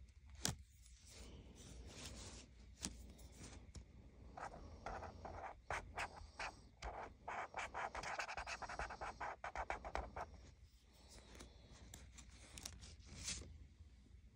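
Felt-tip marker scribbling on paper through a paper stencil: a run of quick, scratchy back-and-forth strokes in the middle, with light taps and paper rustles of the stencil being handled before and after.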